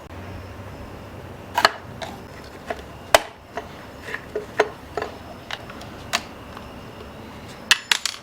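Tools and small chainsaw parts being handled: about a dozen sharp clicks and knocks at uneven spacing, the loudest about three seconds in and a quick cluster near the end.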